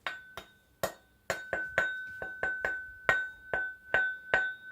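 Steel blade of an IKEA Vardagen Chinese cleaver (X50CrMoV15 steel) tapped repeatedly, about sixteen quick taps coming faster after the first second, each leaving the blade ringing with one clear, sustained high note. The clear ring is taken as the sign of a well heat-treated blade.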